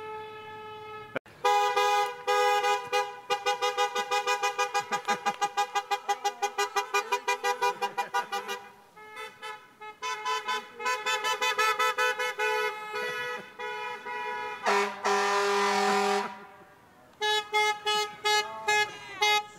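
Car horns honking as cars drive slowly past: one held blast, then long runs of quick repeated toots, about four a second, and later a lower-pitched held horn blast before more rapid toots.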